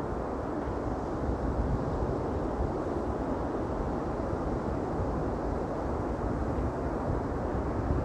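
Steady wind buffeting the microphone: a low, unpitched rumble with small gusty swells.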